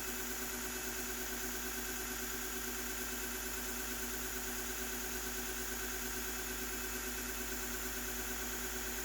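Electric belt sander running steadily at constant speed, a continuous motor hum and whine.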